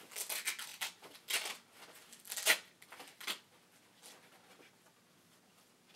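Rustling and scraping of a fabric duffel bag being handled and rummaged through, in several short bursts over the first three and a half seconds, then quieter handling.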